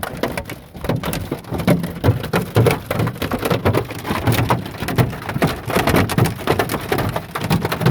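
Hail and wind-driven rain pelting a car's body and windows: a dense, irregular patter of sharp knocks with heavier thumps mixed in.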